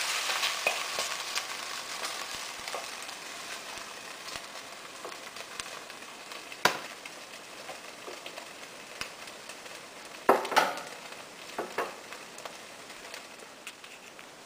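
Turkey and oil sizzling in a stainless steel pan, fading steadily as the meat is scraped out with a wooden spoon. A few sharp knocks, about seven, ten and twelve seconds in.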